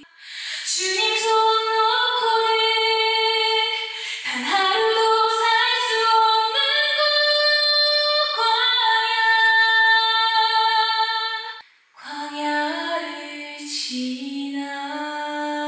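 A woman singing a worship song solo into a handheld microphone, unaccompanied, her backing track heard only in her earphone. She holds long, slow notes, pausing for breath between phrases, most clearly near twelve seconds in.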